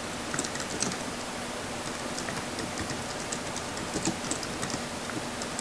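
Typing on a computer keyboard: light, irregular key clicks over a steady background hiss.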